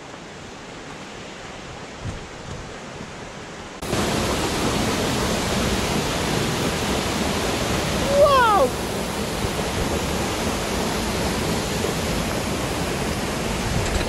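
Steady rushing water of a small waterfall, at first fairly soft, then suddenly much louder about four seconds in. A brief sliding pitched call sounds once about eight seconds in.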